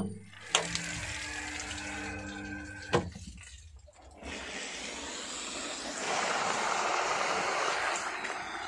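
Water rushing and splashing, growing louder and strongest from about six seconds in. A steady hum with a few low tones runs under noise in the first three seconds.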